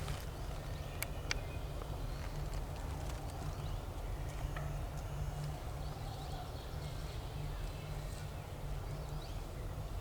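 Low, steady rumble of wind on the microphone, with a couple of sharp clicks about a second in.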